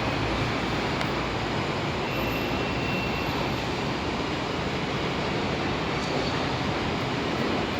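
A lift car travelling up its shaft, heard from inside as a steady rushing hum.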